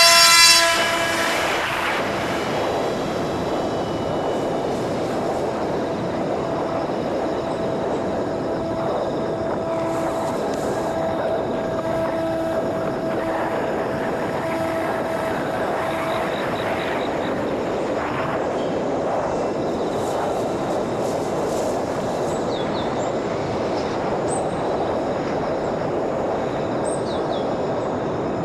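Battery-powered electric motor and 5-inch propeller of a small homemade RC airplane, at full throttle for takeoff, then running steadily in flight. A clear steady note rides on a rushing noise and fades after about sixteen seconds, leaving the steady rush.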